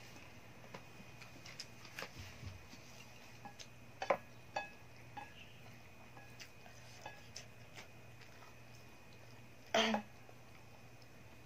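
Chopsticks clicking and scraping against a plate of noodles as they are stirred: scattered light clicks, a louder knock about four seconds in and a short louder clatter near the end.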